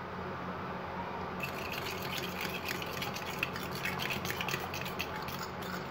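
A fork stirring yogurt with ground spices in a glass bowl. From about a second and a half in, quick irregular clicks and scrapes of the fork against the glass sound over a low steady hum.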